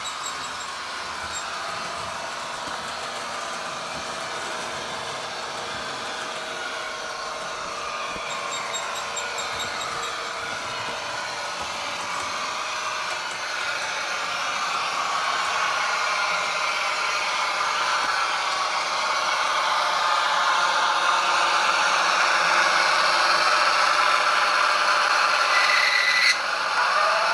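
Bachmann OO-gauge Class 55 Deltic model's factory-fitted LokSound V3.5 decoder playing Napier Deltic diesel engine sound through its small speaker, mixed with the model's motor and wheels running on the track. It grows steadily louder as the locomotive approaches, with a brief click near the end.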